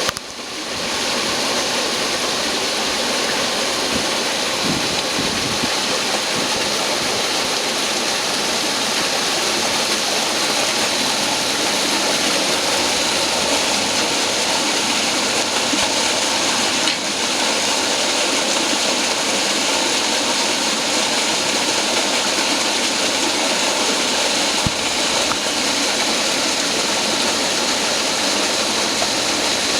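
Industrial vacuum cleaner for cleaning exhaust ducts, running with a steady, loud rushing noise after coming up to speed in the first second.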